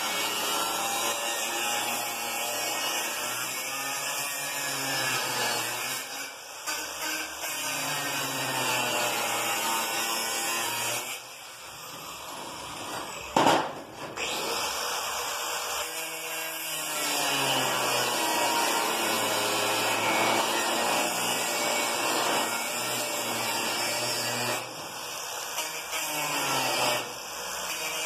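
Angle grinder with a cut-off disc cutting steel tube to shape fish-mouth notches. Its motor whine wavers and dips as the disc bites. The grinding eases off for a couple of seconds partway through, with one sharp metallic knock, then starts again.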